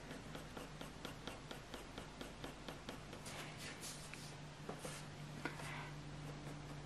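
Graphite pencil making short, light strokes on hot-press watercolour paper: a faint run of quick scratches, a few a second, over a low steady hum.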